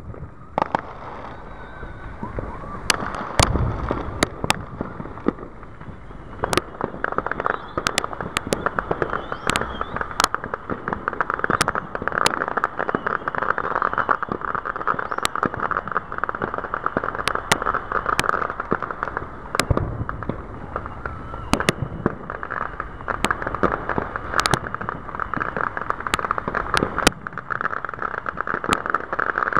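Aerial fireworks shells bursting overhead: a string of sharp cracks at irregular intervals, with deep booms about three and a half seconds in and again near twenty seconds. From about seven seconds in, a dense, steady crackle-like noise runs underneath.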